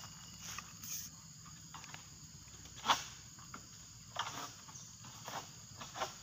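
Faint steady insect drone with a few short knocks and rustles scattered through it; the loudest knock comes about three seconds in.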